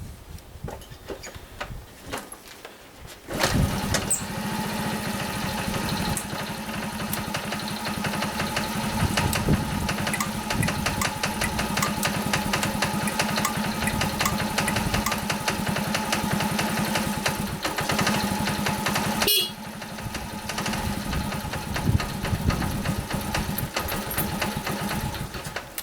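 Honda Super Cub 50's small single-cylinder four-stroke engine starting about three seconds in, then running steadily, with a brief drop in level about two-thirds of the way through.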